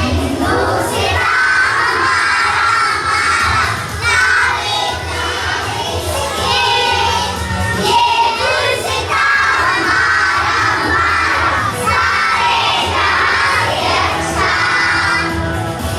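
A crowd of young children's voices, shouting and cheering together, loud and without a break.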